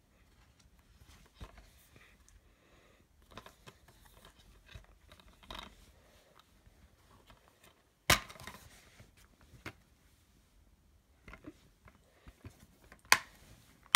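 Plastic DVD case being handled and opened: soft rubbing and scraping, with a sharp snap about eight seconds in and another sharp click near the end.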